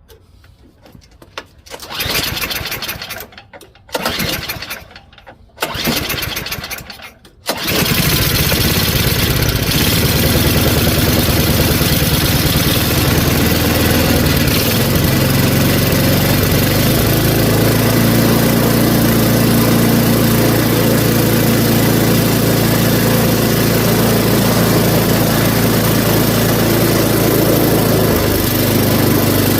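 Tecumseh 5.5 hp snowblower engine being pull-started after priming and choking: three cranking pulls, catching on the third about seven seconds in, then running steadily on its newly installed replacement carburetor.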